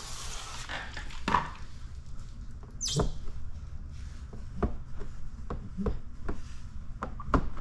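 A spray bottle hisses as it mists tack solution and stops within the first second. Then come scattered light knocks and clicks, with one short high squeak about three seconds in, as the paint protection film is pressed down onto the bumper trim.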